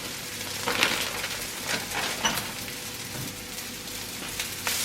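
Cooking oil sizzling softly in a hot wok, with scattered clicks and rustles. Right at the end the sizzle jumps much louder as the noodles go into the oil.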